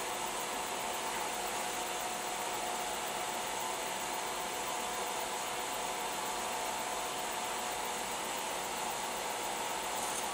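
Steady whir of a Wilson 2 RepRap 3D printer as its extruder stepper motor slowly feeds filament through the heated extruder, over the printer's fan noise: an even hiss with a few steady tones that does not change.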